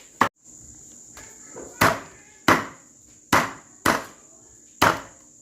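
A heavy knife chopping on a wooden board, six strokes at uneven intervals. A steady high-pitched insect chirring runs underneath.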